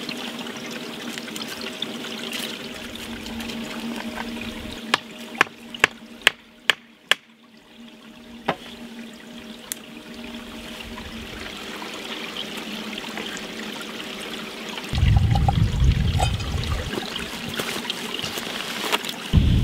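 Shallow stream water trickling steadily. About five seconds in comes a quick run of six sharp knocks, a knife striking into dry wood, with one more a little later. From about fifteen seconds in a loud low rumble joins, like wind buffeting the microphone.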